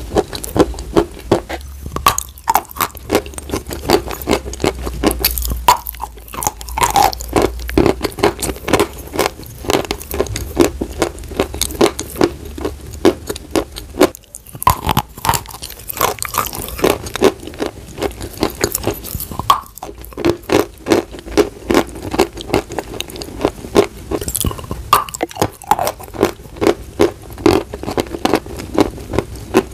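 Dry chalk being bitten and chewed: a dense run of sharp, crisp crunches as pieces are bitten off and ground between the teeth, with a short pause about halfway through.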